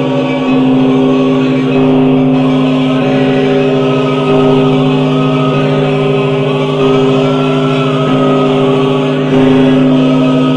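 Orthodox choir singing a slow chant in long held notes over a steady low drone, changing chord every second or two.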